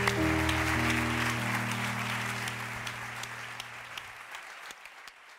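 Audience applauding over music of sustained, changing low notes; the music stops about four seconds in and the applause fades away.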